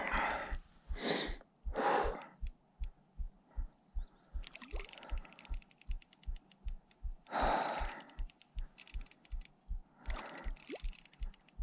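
Spinning reel being cranked, its gears ticking and thumping in a steady rhythm about three times a second, with several loud, heavy breaths over it.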